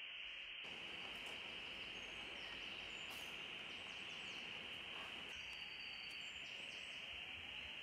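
Steady background hiss with faint, short, high chirps scattered through it.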